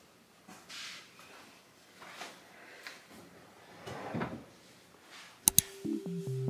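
Faint rustling and a few soft knocks from someone getting dressed and handling a lanyard; about five and a half seconds in, a sharp click and electronic background music with a steady beat begins.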